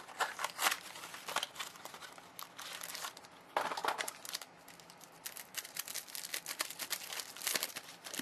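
Trading-card pack packaging crinkling and rustling in the hands as the next pack is opened, in quick irregular crackles, with a louder rustle about three and a half seconds in.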